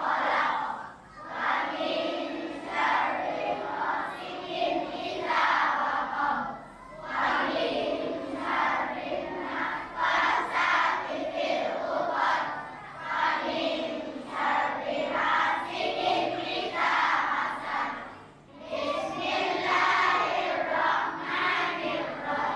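A group of schoolchildren chanting in unison, phrase after phrase, with short breaks between the phrases.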